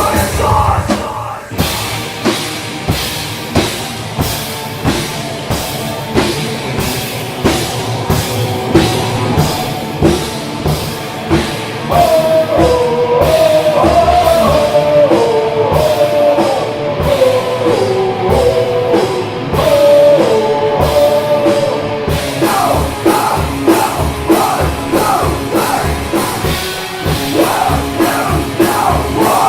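A rock band playing live, with a steady drum-kit beat under the full band. A melodic lead line stands out through the middle.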